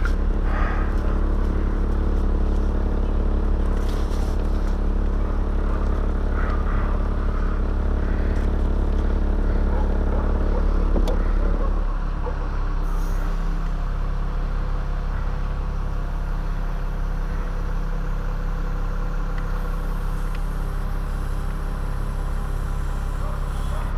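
An engine running steadily at idle, with a handful of faint clatters and scrapes. About halfway through, its note drops and settles into a lower, even, slightly pulsing hum.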